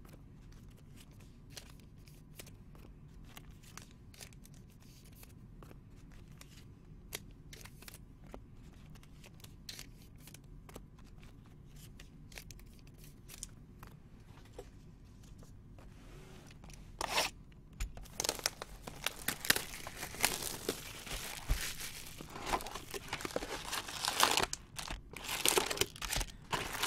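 Quiet room tone with a few faint clicks. About 17 seconds in, plastic shrink-wrap starts being torn off a cardboard trading-card box and crumpled, in loud, irregular crackles, as the box is opened on its packs.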